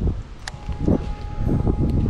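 Strong wind buffeting the microphone in uneven low gusts, with one sharp click about half a second in.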